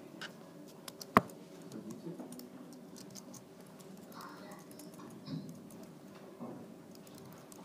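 Computer keyboard typing: sparse, scattered keystrokes, with one much louder sharp click about a second in.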